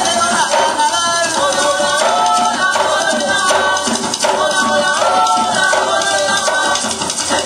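Live Puerto Rican bomba music: barrel drums (barriles de bomba) played in a steady rhythm under sung vocals.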